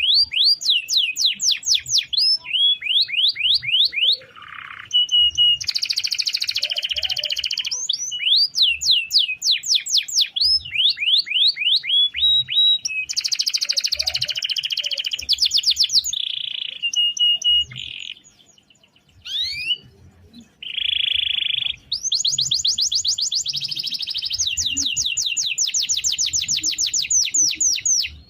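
Domestic canary singing a long rolling song: fast runs of repeated sweeping whistles alternate with dense buzzy trills, with a short break about two-thirds of the way through.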